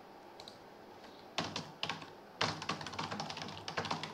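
Typing on a computer keyboard: a few separate keystrokes about a second and a half in, then a fast, continuous run of key clicks from about halfway through.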